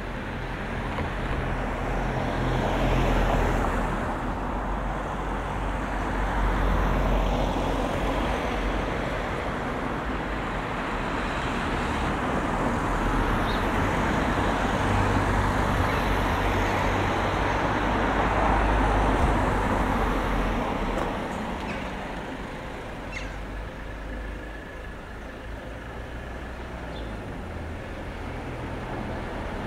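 Road traffic, with several cars and other vehicles passing one after another as a swelling and fading rumble. It dies down after about two-thirds of the way through.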